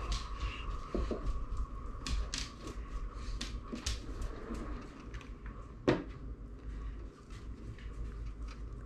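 Light, scattered clicks and rustles of hands handling rope and craft materials, with one sharper click about six seconds in.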